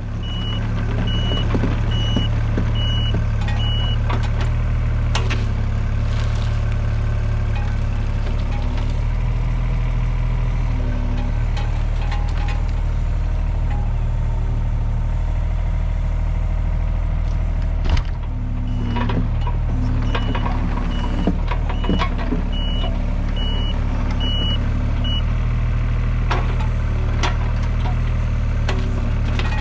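Heavy machine's engine running steadily while its reversing alarm beeps, about two beeps a second, near the start and again about 21 seconds in. A single knock comes about 18 seconds in.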